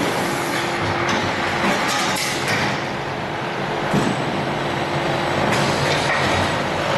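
Rotor aluminium die-casting machine running a cycle: steady machinery noise with several short hisses of air and a sharp knock about four seconds in, when the casting is made.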